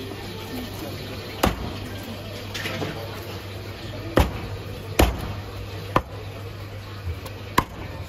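Heavy Chinese cleaver chopping poached chicken on a thick wooden chopping block: five sharp chops at uneven intervals, over a steady low hum.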